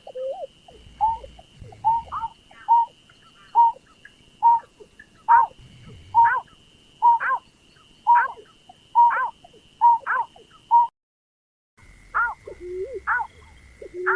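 Lure recording of the berkik (pekung/burcet) bird's call: short hooting notes repeated about once a second, each with a quick upward flick, over a faint steady high whine. The calls stop for about a second near the end, then resume.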